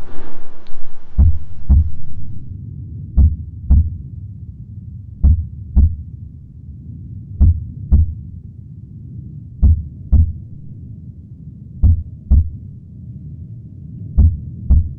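Slow heartbeat sound effect: seven pairs of low thumps, each a lub-dub about half a second apart, repeating roughly every two seconds over a low steady hum.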